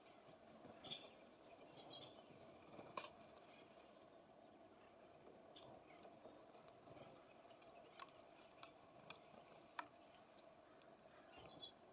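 Small songbirds at a feeder giving faint, short, high chirps and twitters scattered throughout, with a few sharp taps about 3, 8 and 10 seconds in. A faint steady hum lies underneath.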